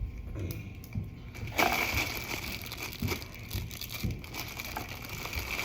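Plastic toys and packaging handled and rustled, with a few light clicks and knocks, then a steadier crinkling rustle from about a second and a half in.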